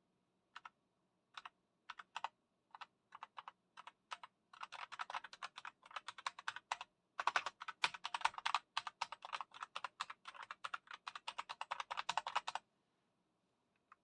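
Typing on a KOORUI MK082 mechanical keyboard with red switches: a few scattered keystrokes at first, then fast continuous typing from about four and a half seconds in, stopping shortly before the end.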